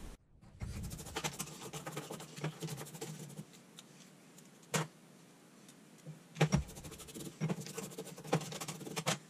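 Fast-forwarded scrubbing of an MBK 51 moped's fuel tap with a toothbrush: dense, rapid scratching and clicking. It goes quieter for a few seconds in the middle, broken by one sharp click.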